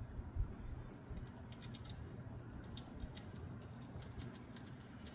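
Faint quick irregular clicks, several a second, starting about a second in and running on nearly to the end, over a low steady background rumble.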